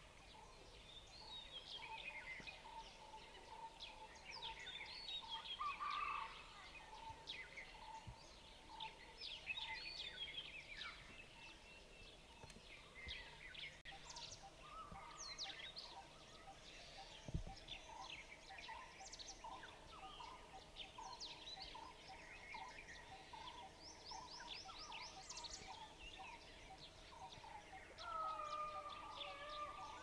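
Faint mixed chorus of wild birds: many short high chirps and whistles, under a steady run of evenly repeated lower notes typical of a blue-throated barbet. Near the end a louder arching, rising-and-falling call comes in.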